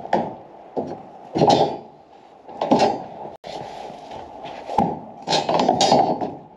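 Irregular footsteps on a snow-covered deck of concrete forms while a bent steel rebar piece is carried and handled, with a sharp knock a little under five seconds in.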